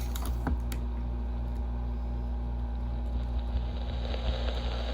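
AM radio receiver giving out hum and buzzing static while being tuned between stations, with a few button clicks about half a second in.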